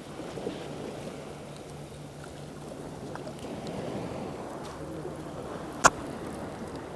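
Calm sea water washing and lapping steadily around a wading angler, with one sharp click just before the end.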